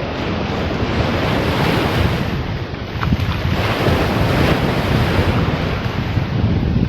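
Wind buffeting the microphone over the steady wash of ocean surf, a continuous low rumble with no distinct events.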